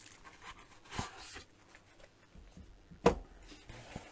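Faint handling noise of multimeter accessories being moved and set down, with a soft knock about a second in and a sharper, louder knock about three seconds in.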